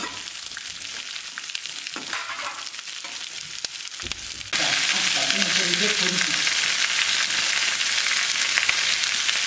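Sliced onions and dried red chillies frying in oil in an aluminium kadai, with a steel spoon clicking and scraping against the pan as they are stirred. About four and a half seconds in, the sizzle jumps suddenly much louder and carries on as a steady hiss.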